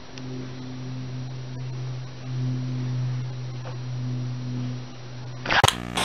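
A steady low hum, flat in pitch, that swells and eases in level every second or so. It cuts off near the end with a short burst of rapid clicks.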